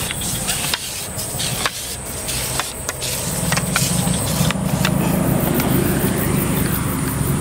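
Low engine hum of a motor vehicle, growing louder about three seconds in, over a steady high insect buzz and a few faint clicks.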